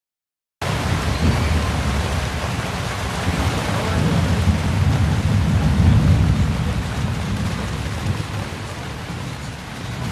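Thunderstorm heard from a small yacht: a steady rain hiss under a deep rumble of thunder that swells to a peak about six seconds in, then eases. The sound starts abruptly after a half-second dropout.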